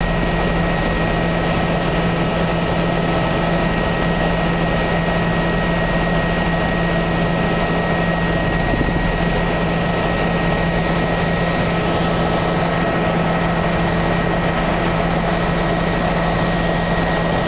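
Steady engine and airflow noise inside the cabin of a small aircraft in flight: a constant low hum with two faint steady higher whines over a wide hiss.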